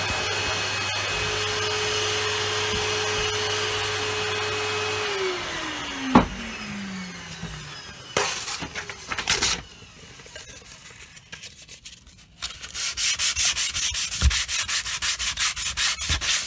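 A small vacuum cleaner runs steadily, is switched off about five seconds in, and its motor winds down in pitch. After a short pause, sandpaper is rubbed quickly back and forth over the dried filler surface, about five scraping strokes a second, until the end.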